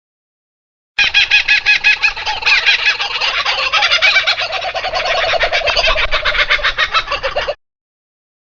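Fowl calling in a rapid run of pulses, about ten a second. It starts about a second in and cuts off sharply after roughly six and a half seconds.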